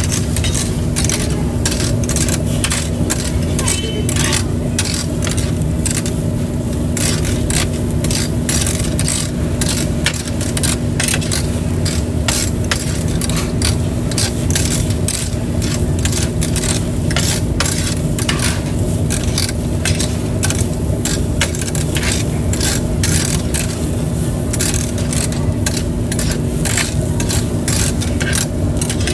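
Metal tongs clicking and scraping against a steel grill grate in quick, irregular strokes as pieces of tripe are turned, over a steady sizzle and a constant low hum.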